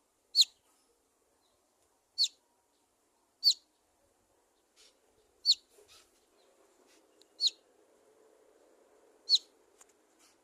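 A bird giving single sharp chirps every second or two, six in all, each a short high note that drops quickly in pitch.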